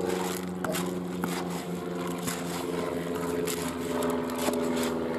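A baiting spoon stirring a bucket of particle bait and pellets, the grains scraping and rattling in repeated strokes, over a steady engine drone.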